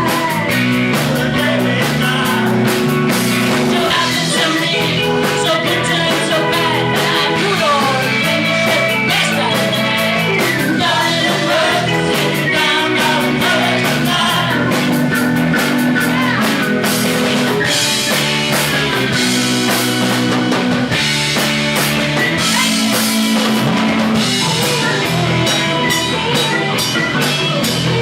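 Live rock band playing: drum kit, electric guitar and bass under a singing voice.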